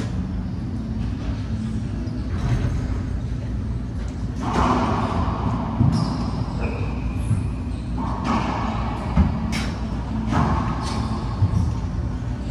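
Racquetball being played: the ball smacks against racquets and the court walls a handful of times at irregular intervals, echoing in the enclosed court over a steady low hum.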